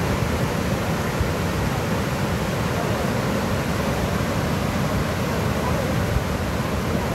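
Steady rushing roar of a large tiered waterfall and the whitewater river churning below it.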